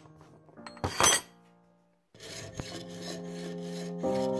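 Hacksaw cutting through a thin brass tube clamped in a vise, in quick, even back-and-forth scraping strokes that start about two seconds in. About a second in there is a short, loud rushing swish, and piano music comes in near the end.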